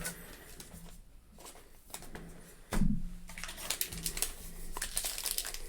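Trading cards being handled and flipped through by hand: light taps and rustles, with one louder knock about three seconds in.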